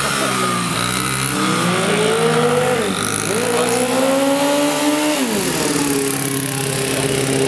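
Mini dirt bike engine revving up and dropping back twice, each rise lasting about a second and a half, then running steadily at a lower speed for the last couple of seconds.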